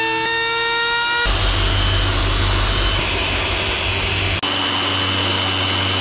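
Corded power tools running, spliced across several abrupt cuts. About the first second is a steady high-pitched motor whine. From just over a second in it becomes a rougher, noisier run with a low hum underneath, as a random orbital sander with a dust-extraction hose works the edge of a plywood deck.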